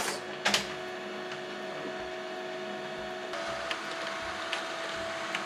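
HP LaserJet Pro CM1415fnw colour laser printer running as it prints a page: a steady whir whose note changes about three seconds in, with a sharp click about half a second in and a few light ticks.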